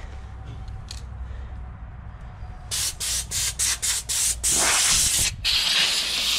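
Compressed-air blow gun blowing out a combine harvester's louvred metal sieve in hissing blasts. They start about two and a half seconds in: about half a dozen short bursts, then two longer ones.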